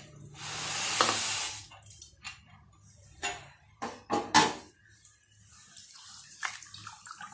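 Pearl millet grains pouring off a metal tray into a steel bowl of water, a hiss lasting about a second and a half. Then come several sharp metal knocks and clinks against the steel bowl, and near the end faint swishing as a hand stirs and rubs the grains in the water to wash them.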